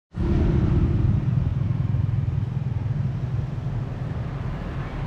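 A vehicle engine running close by: a low, steady rumble that eases off a little over the seconds, mixed with passing road traffic.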